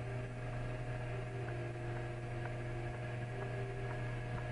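Steady low machine hum with a few steady higher tones over it, and faint light ticks about once a second.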